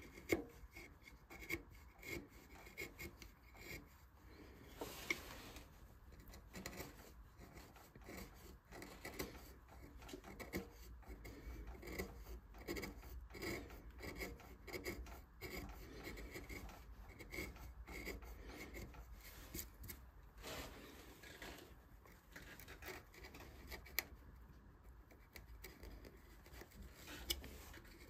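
Hand carving tools scraping and cutting into wood in short, irregular strokes, with occasional sharper ticks, as relief flowers are carved into a turned wooden vase.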